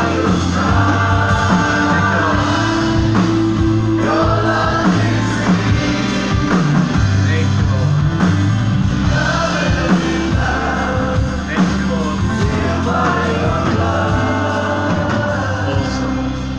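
Live church worship band playing a song, with voices singing together over sustained bass and keyboard-like notes.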